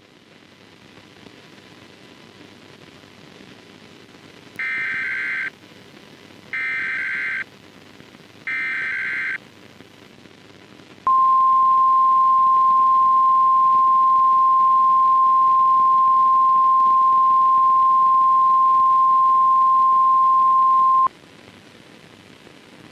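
Emergency Alert System header: three short bursts of warbling data tones about a second apart, then a single steady alert tone held for about ten seconds, over a steady hiss.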